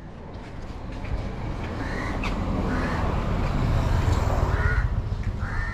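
A crow cawing four times in short harsh calls, over the low rumble of a passing motor vehicle that is loudest about four to five seconds in.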